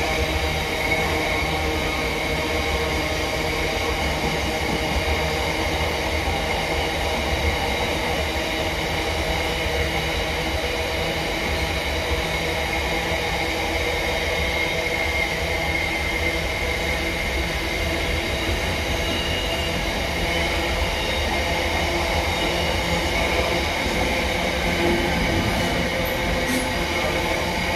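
Diesel train running steadily, close by: a constant low engine rumble with several steady whining tones above it, unchanging in level throughout.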